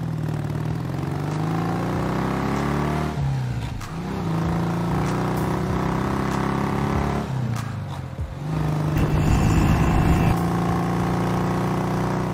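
Motorcycle engine running under way, its revs dipping and climbing again twice, about three and about seven seconds in, and running louder and rougher from about eight and a half seconds.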